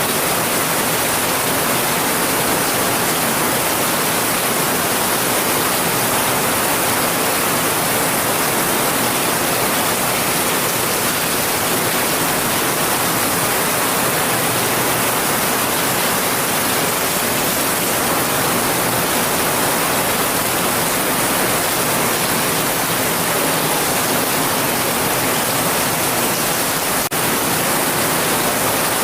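Steady heavy rain, an even rushing hiss with no separate drops or thunder, broken once by a brief dip near the end.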